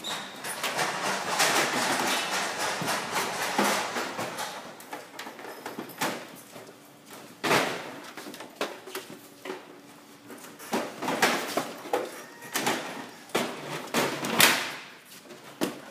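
CRT monitors being handled onto a pallet: a rough scraping slide for a few seconds, then a run of separate knocks and thuds as units are set down and pushed together.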